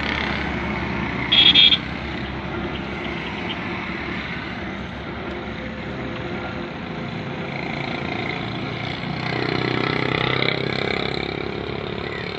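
Road traffic running steadily, with a short vehicle horn toot about a second and a half in, and the traffic noise swelling louder for a couple of seconds later on as a vehicle passes close.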